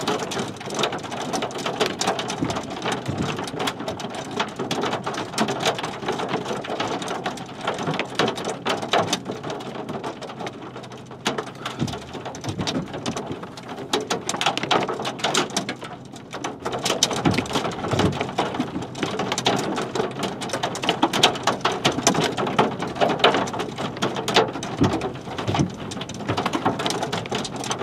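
Rain falling, heard as a steady hiss with a dense, irregular crackle of individual drops hitting close by.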